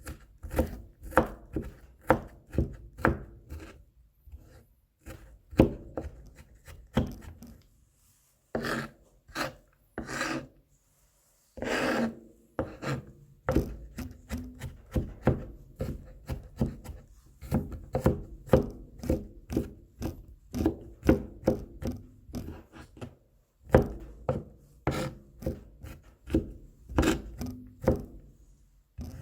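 Kitchen knife chopping garlic on a cutting board: quick knocks about three a second, broken by short pauses, with a longer scraping stroke about twelve seconds in.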